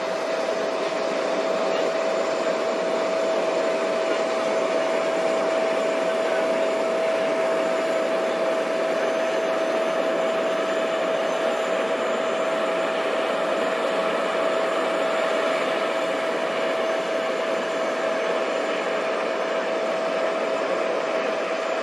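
Boeing 777-9's GE9X turbofan engines on approach and landing: a steady broad rush of jet noise with a steady high whine running through it.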